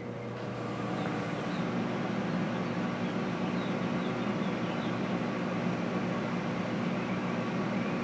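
1983 Kenmore convection microwave running a microwave cycle at full power, drawing about 1400 watts. It is a steady low hum that grows louder about half a second in and then holds even.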